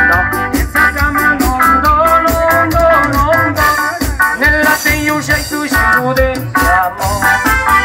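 Live band dance music played through PA loudspeakers: a melody line over a steady bass beat.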